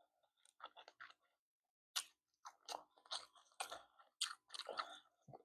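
Close-miked crunching and clicking sounds of a seafood boil being eaten or handled: a dozen or so short, irregular crackles and smacks, faint.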